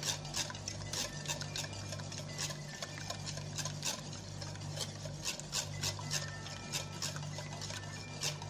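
Wire whisk beating eggs in a ceramic bowl: the wires click and scrape against the bowl in an uneven rhythm, a few strokes a second.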